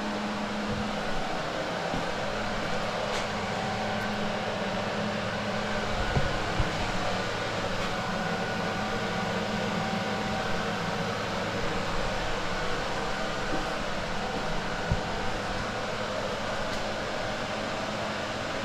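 Steady mechanical hum of a running machine such as a fan, with a few faint knocks along the way.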